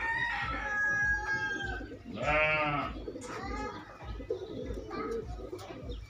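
Domestic pigeons cooing in a loft. A louder drawn-out call rings out about two seconds in.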